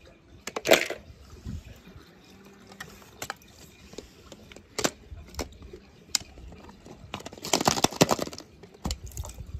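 Toy cars being handled and dropped into water: scattered clicks and splashes, with a longer run of splashing and clatter about eight seconds in.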